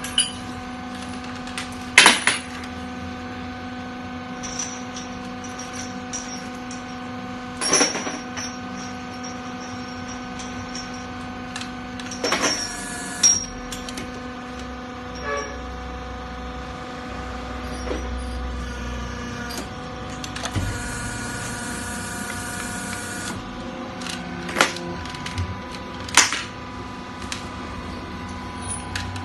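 Hydraulic hose crimping machine running with a steady electric motor and pump hum, broken by several sharp clanks. A few seconds of hiss come about two-thirds of the way through.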